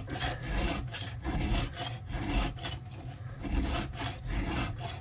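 Hand file being drawn across the cutters of a chainsaw chain in a series of rasping strokes, about two a second, with short pauses between strokes. The file is reshaping teeth that were damaged by hitting a rock or nail.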